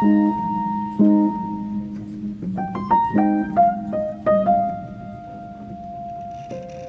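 Background music: piano, with chords struck about once a second under a simple melody, notes ringing out and fading.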